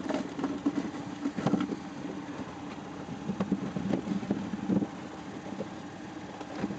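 Homemade apple scratter running, a steady mechanical hum with irregular knocks, while it is jammed with apples.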